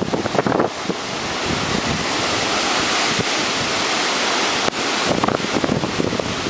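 Strong hurricane wind blowing hard and steadily, with gusts buffeting the microphone near the start and again from about five seconds in.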